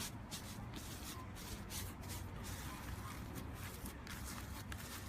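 Slime being squished and stretched by hand: a run of irregular soft crackles and rustles.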